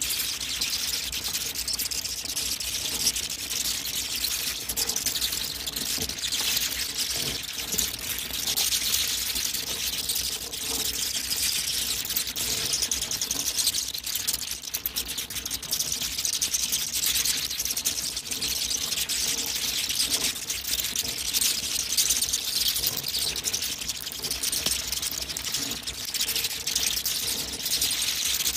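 A large colony of bats calling together: a dense, continuous mass of high squeaks and rapid clicking chatter without a break.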